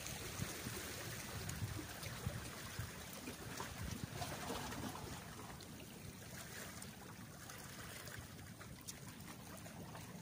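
Sea water lapping and trickling against the rocks of a breakwater, with wind rumbling on the microphone in the first half and a few faint clicks.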